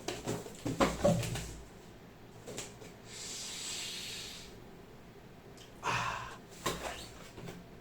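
Headset packaging being handled during unboxing: a cluster of knocks and taps on cardboard, a soft scraping or rustle lasting about a second and a half in the middle, then a few more knocks near the end.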